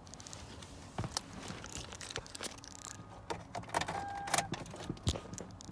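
Scattered clicks and light rattling, like keys and switches being handled, with a short electronic beep from the 2011 Toyota Sienna about four seconds in, while the sliding door's window is being lowered without success.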